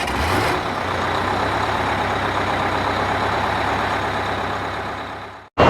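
Bus's diesel engine running steadily with a low hum, fading away about five seconds in before cutting off.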